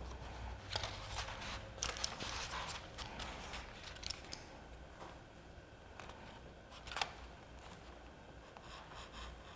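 Craft knife cutting slits in a cardstock papercraft piece, with paper rustling and a few sharp clicks and taps.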